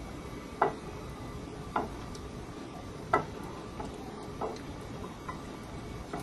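Five light knocks of a kitchen utensil against a bowl, about one every second or so, over a steady low hum.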